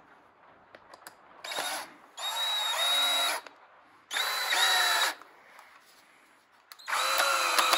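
Power drill driving a 2.5-inch screw through a foam head into a taxidermy form. It runs in three short spurts of about a second each, after a brief blip, and the motor pitch rises and falls as each spurt starts and stops.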